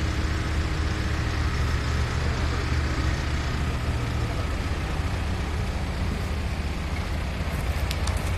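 An engine idling steadily: a constant low hum with some background rush.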